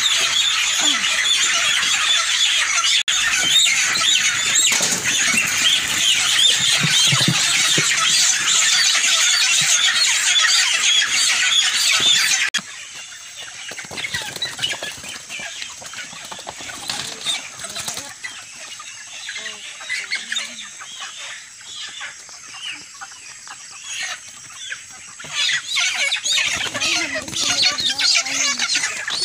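A dense, loud chorus of many broiler chickens squealing and peeping as they are caught and handled. It cuts off suddenly about twelve seconds in, leaving a quieter stretch of scattered sounds. Near the end the chickens squawk loudly again as they are put into plastic crates.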